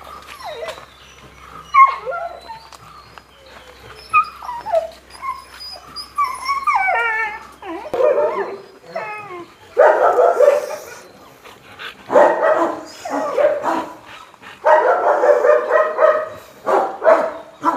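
A dog whining, with rising and falling whimpers and yips for the first several seconds, then louder bursts of rapid barking about every two seconds.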